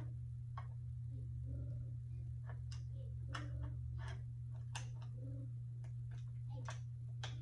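Irregular small plastic clicks and ticks from fingers handling a compact camera while fitting its battery, over a steady low electrical hum.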